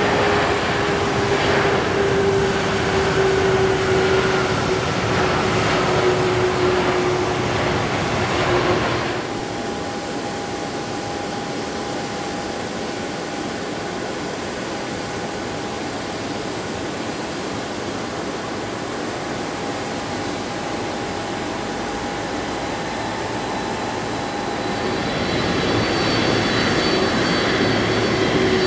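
Japan Airlines Boeing 767's twin jet engines whining, the pitch falling steadily as they wind down. About nine seconds in, the sound drops abruptly to a quieter, steady idle whine, which grows louder near the end as the airliner taxis closer.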